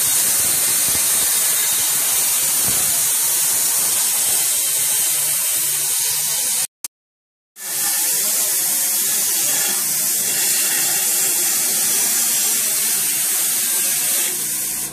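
Cut-off wheel grinding through a steel exhaust pipe to free the old muffler: a steady, high hissing whine. It breaks off for under a second about seven seconds in.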